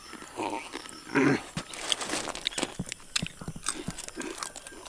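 Crisp deep-fried jackfruit chips being bitten and chewed: a scattered run of short, dry crunches and crackles.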